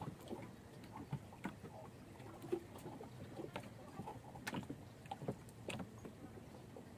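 Water lapping against a small boat on the river, with light irregular knocks and clicks.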